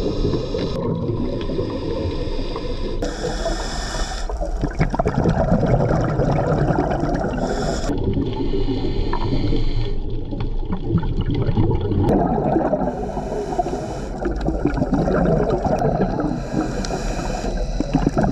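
Underwater sound from a diving camera: a scuba diver's regulator breathing, hissing inhalations alternating every couple of seconds with rumbling bubbly exhalations over a steady underwater wash.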